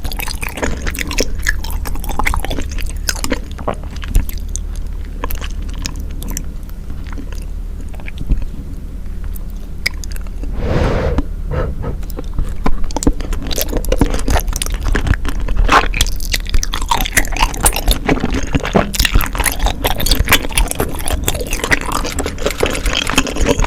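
Close-miked chewing of chewy tteokbokki rice cakes: irregular wet mouth clicks and smacks throughout, with one short rushing sound about halfway through.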